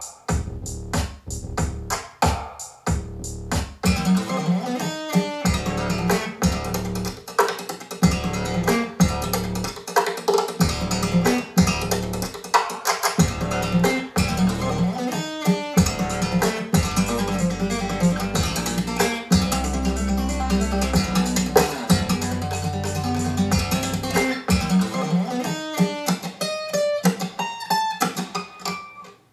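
Recorded music playing: a guitar piece with plucked, picked notes, which cuts off to silence right at the end.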